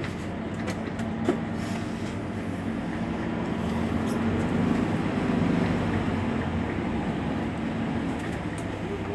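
Mercedes-Benz Citaro C2 Hybrid city bus standing at a stop with its engine running at idle: a steady low hum that swells a little louder around the middle. A sharp click sounds about a second in.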